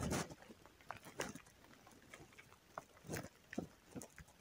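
Faint, scattered clicks and rustles of hands working a fishing hook free from a pike's mouth, with a louder rustle right at the start.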